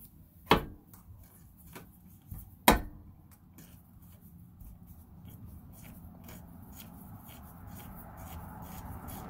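Two sharp knocks of metal parts against the spin bike's steel frame, about two seconds apart. Then faint light ticking and handling noise as the M10 bolts of the rear stabilizer bar are threaded in by hand.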